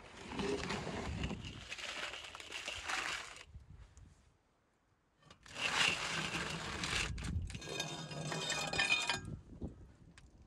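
A metal tray scraping across the brick floor of a wood-fired oven as it is pushed in with a metal rake. The scraping comes in two stretches with a short silence between, and the second has a metallic ringing squeal.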